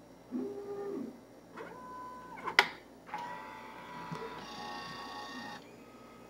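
Cup-type coffee vending machine's mechanism running: a few short motor whirs, a sharp click about two and a half seconds in, then a longer whir of a few seconds as its automatic delivery door opens on the finished cup.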